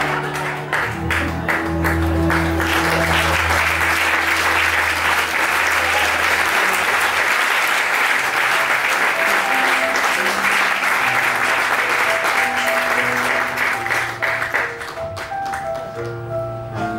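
Theatre audience applauding over background music, with the clapping dying away near the end.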